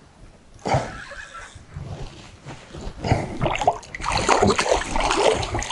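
Irregular splashing in the water, starting with a single splash a little under a second in and growing dense and louder from about three seconds in: a hooked carp thrashing at the surface as it is brought in to be landed.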